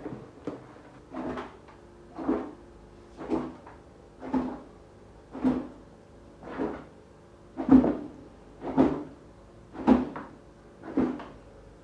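Hands patting and rubbing marinade into a whole raw turkey: short pats at a steady rhythm of about one a second.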